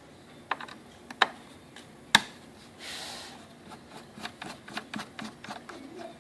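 Precision flathead screwdriver working the screw on top of an alarm keypad panel: small irregular clicks and a brief scrape as the screw is turned out, with one sharper click about two seconds in.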